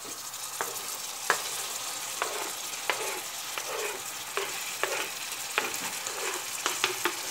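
Onions and peppers frying in butter and sunflower oil in a stainless steel pan, a steady sizzle, as diced tomatoes are added. A wooden spoon scraping the tomatoes off a wooden cutting board into the pan gives a string of short knocks and scrapes.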